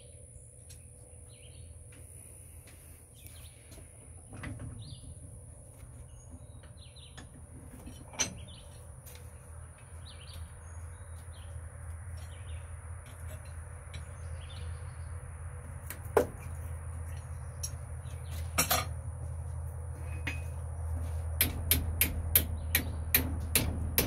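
Blacksmith's hand hammer striking hot steel clamped in a post vise: a few single ringing blows, then near the end a steady run of about two to three blows a second. A low steady hum grows louder underneath.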